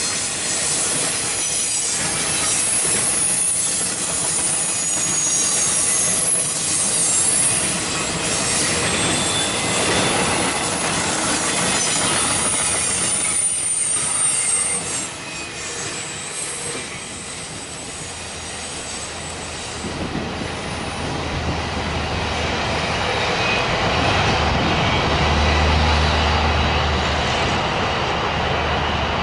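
CSX double-stack intermodal freight cars rolling past close by: a steady rumble and clatter of wheels over the rail joints, with high-pitched wheel squeal through the first half. About twenty seconds in the sound grows more distant and a low drone comes up.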